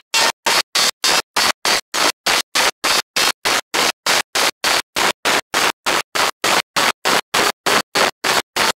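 Wind rush and engine noise from a Kawasaki ZZR1400 at speed, picked up by an onboard camera, cut into short choppy bursts by regular audio dropouts about four times a second: a recording glitch, not the bike.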